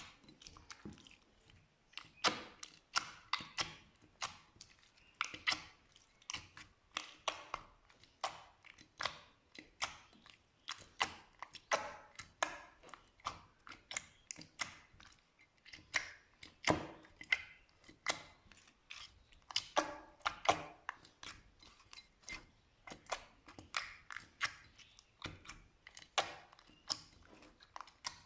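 Slime being squished and worked by hand, giving a steady run of short, sharp wet clicks and crackles, irregularly spaced at a few a second.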